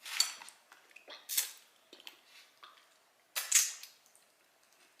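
Close-miked eating sounds: chewing with three sharp, wet mouth smacks, about a quarter-second in, near one and a half seconds and around three and a half seconds, and quieter smacking between them.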